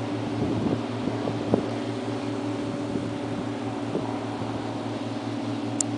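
Steady low drone of boat engines on the water below, an even hum holding several fixed pitches. A brief high click comes near the end.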